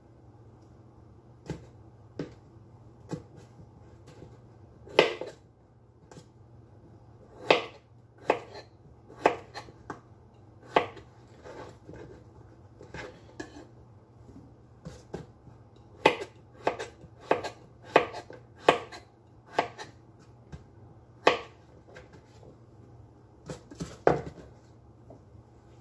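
Chef's knife slicing raw chayote squash into thin strips, the blade knocking on a plastic cutting board in irregular strokes, with quicker runs of one or two a second in the second half.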